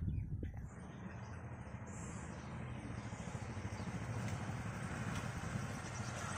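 Two small motorcycles running as they ride up, the engine noise growing gradually louder.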